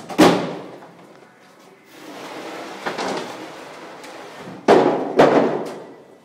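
Plastic grape crates knocking against a champagne press as chardonnay grapes are tipped into it: a sharp knock just after the start, a rustle of grapes sliding out, then two loud knocks half a second apart near the end.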